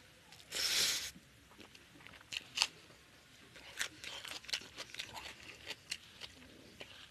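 Close-up eating sounds: a short hiss about half a second in, then scattered sharp clicks and wet smacks from fingers working rice and chicken curry on the plate and from biting and chewing, a raw tomato slice going into the mouth near the end.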